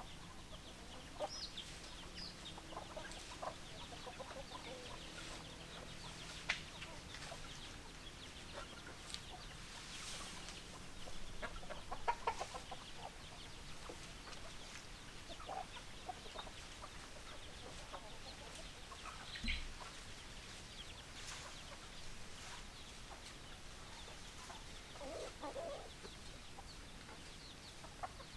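Domestic chickens clucking: scattered short calls, with a busier, louder run of clucks about twelve seconds in.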